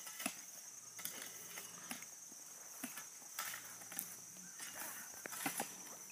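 Insects outdoors droning in a steady high-pitched chorus, with scattered short knocks and scrapes of work going on.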